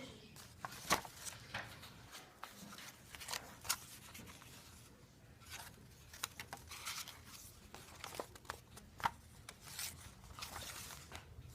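Paper pages of a handmade journal being turned and handled: faint rustling with scattered crisp clicks and snaps at irregular times.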